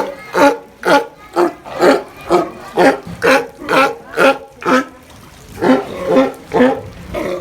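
Sea lion barking over and over, about two barks a second, with a brief pause about five seconds in before it resumes.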